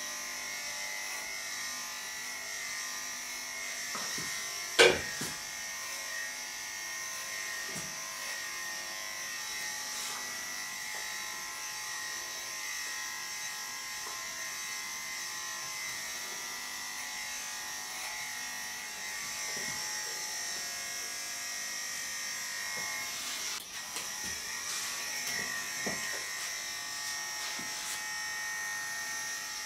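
Electric pet grooming clippers running with a steady buzz, shaving a bichon frise's coat. A single sharp knock about five seconds in.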